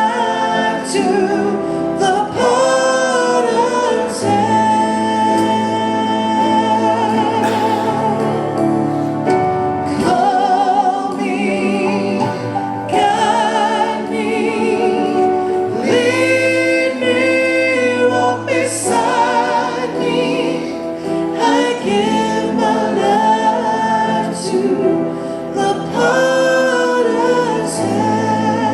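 Gospel worship music: singers with vibrato over a band with steady bass notes, the congregational singing of a church service.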